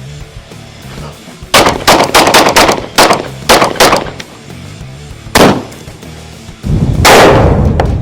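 Gunshots over rock background music: a quick run of about half a dozen shots, then a few more in small groups, a single shot, and a longer, heavier blast near the end.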